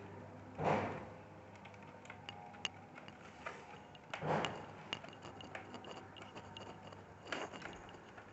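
Laptop screws being driven back into the case with a small screwdriver: scattered light clicks and ticks of the screwdriver and screws, with three short louder rustles of the parts being handled.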